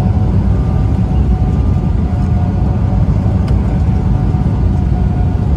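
Steady cabin noise inside an Embraer 195 jetliner on approach with its flaps extended: a loud, even low rumble of airflow and the wing-mounted turbofan engines, with a thin steady tone above it.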